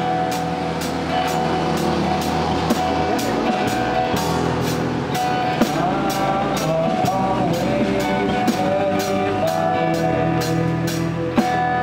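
Live acoustic band playing: two acoustic guitars strumming over a small drum kit, the drummer keeping a steady beat with sticks on cymbal and drums.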